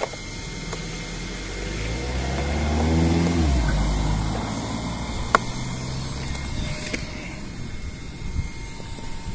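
A car going past, rising to its loudest about three seconds in and fading away within a few seconds. A sharp click about five seconds in.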